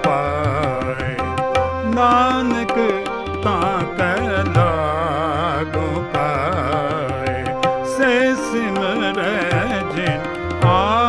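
Shabad kirtan: a voice drawing out a long, ornamented line of the hymn with wavering pitch, over steady held harmonium notes and a running tabla accompaniment.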